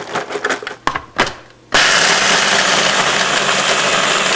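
Vanilla wafers clattering out of their crinkly packet into a food processor bowl, then a little under two seconds in the small electric food processor starts and runs steadily, grinding the wafers into fine crumbs.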